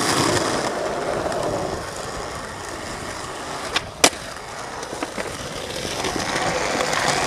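Skateboard wheels rolling over pavement and concrete, with one sharp clack of the board as the skater gets onto a concrete ledge about four seconds in.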